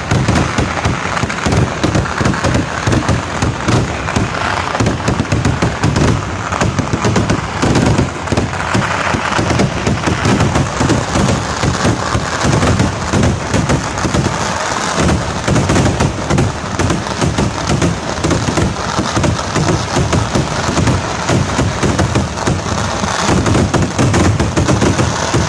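Kerala vedikkettu fireworks: a rapid, unbroken barrage of firecracker and shell blasts, so many cracks so close together that they merge into one dense rattle.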